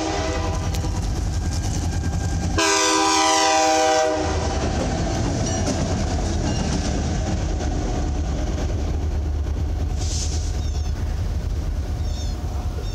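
Norfolk Southern diesel locomotives running light: the air horn sounds one chord of several tones for about a second and a half, a few seconds in. A steady low diesel rumble and the noise of wheels on the rails run under it.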